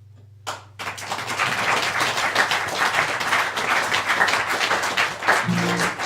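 Audience applauding, starting suddenly about half a second in, as the last acoustic guitar chord dies away.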